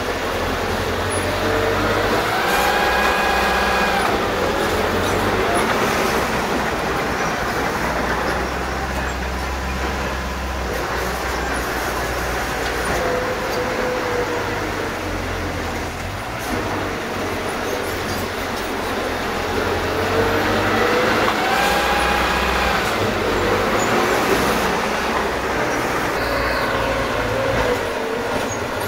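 Small crawler bulldozer's diesel engine running under load as it pushes soil, with a steady low drone. Twice, a high pitched squeal rises and falls over about a second and a half.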